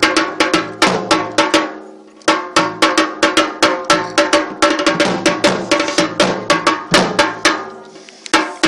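Traditional drums played in a fast, driving beat of about five or six strokes a second, the strokes ringing a little; the beat breaks off briefly about two seconds in and again near the end.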